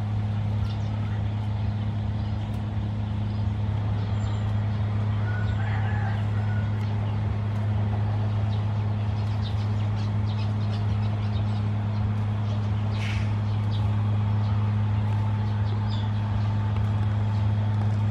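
A steady low mechanical hum, like a motor or engine running without change, with a few faint bird chirps over it.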